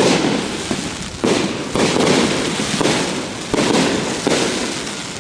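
Aerial fireworks going off in quick succession, about six bursts in five seconds, each a sudden report that trails off in a crackle.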